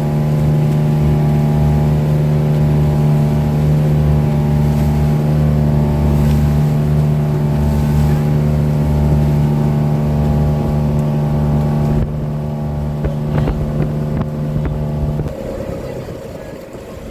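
Motorboat engine running steadily at speed, then throttling back about twelve seconds in and dying away a few seconds later.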